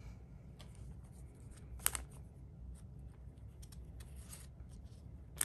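Foil trading card being handled and slid into a clear plastic penny sleeve: faint crinkling and sliding of the soft plastic, with a sharp crackle about two seconds in and another at the end.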